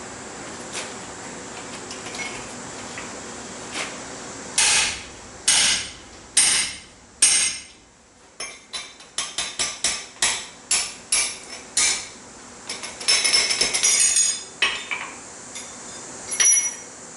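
Hammer striking steel on an anvil while forging a bottle opener hoop. First four heavy, ringing blows about a second apart, then after a brief pause a quicker run of lighter blows, a dense flurry, and one last blow near the end, over a steady hiss.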